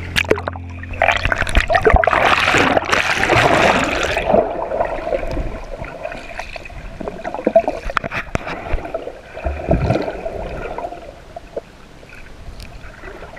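Water splashing and gurgling around a camera as it goes under the surface, loudest about one to four seconds in, then the muffled, steady sloshing of water heard with the microphone underwater, fading near the end.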